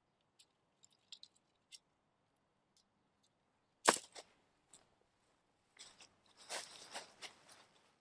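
A sharp knock just under four seconds in, then crinkly rustling of nylon tent fabric for about two seconds as the dome tent, laid flat on grass, is knelt on and handled. A few faint high ticks come before the knock.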